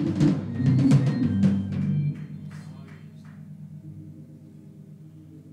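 Church band playing out the end of a gospel song: drum kit strikes over the first three seconds or so, getting softer, over a held low chord that carries on quietly once the drums stop.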